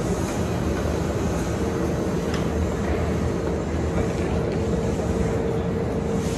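Kintetsu Minami Osaka Line electric train in the station: a steady rumble, with a steady hum that sets in about one and a half seconds in.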